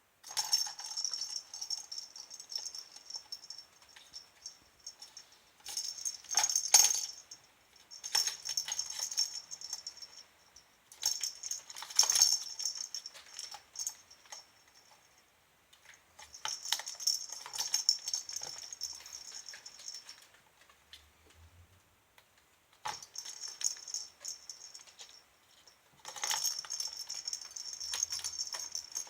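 A kitten's toy rattling and jingling as it is batted around, in bursts of one to four seconds with short pauses between.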